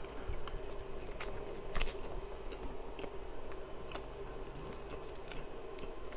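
A man chewing a mouthful of sausage with his mouth closed, with scattered faint clicks and ticks, over a steady low hum.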